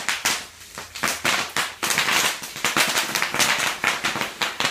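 Sheets of bubble wrap popping under the wheels of an electric wheelchair as it rolls across them: dense, rapid-fire runs of pops like firecrackers, with brief pauses between the runs.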